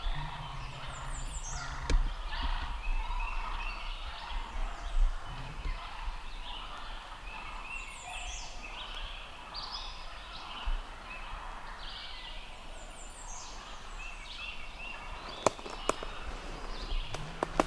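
Several wild turkeys calling at once: gobbles among a nearly continuous run of purring and yelping, the noise of jakes fighting a gobbler. A few sharp snaps near the end.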